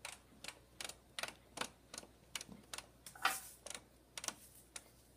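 Thermomix TM5 selector dial being turned step by step, clicking about two to three times a second as the cooking time is dialled up toward 20 minutes.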